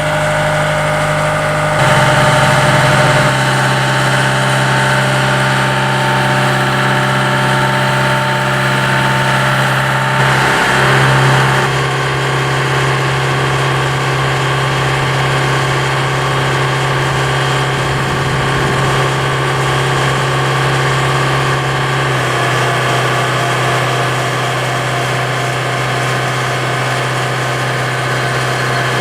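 A steady machine drone, like an engine or motor running. Its pitch shifts in steps a few times: about two seconds in, about three seconds in, about twelve seconds in, and about twenty-two seconds in.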